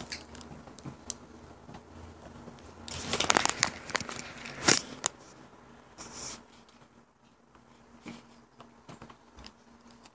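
Snack packaging crinkling and rustling as it is handled, loudest about three seconds in, with a sharp click shortly after and a few small taps.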